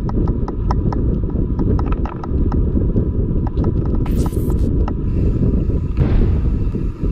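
Wind buffeting a handlebar-mounted action camera's microphone, with the low rumble of a mountain bike rolling on a paved path. Over the first four seconds or so a string of light, irregular ticks and rattles comes from the bike, and a brief swish passes about six seconds in.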